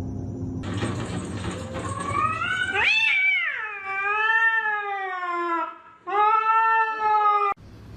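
Domestic cat yowling. One long drawn-out call rises, then falls and wavers for about three seconds. After a short break a second, shorter call cuts off suddenly near the end.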